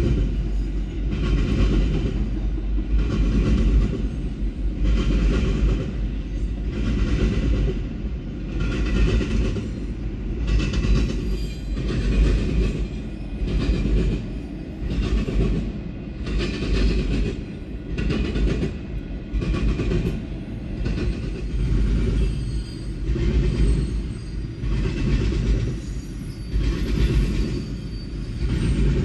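A train passing close by: a steady low rumble with a rhythmic clatter of wheels over rail joints, about once a second.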